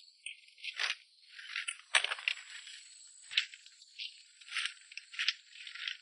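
Dry firewood branches being gathered and bundled by hand: irregular rattling and scraping of sticks against each other, with a sharp clack about two seconds in, the loudest, and another about three and a half seconds in.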